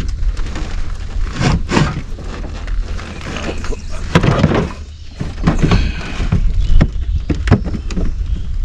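Irregular knocks and thumps in a small fishing boat as a freshly caught bream is swung aboard and handled, over a low steady rumble.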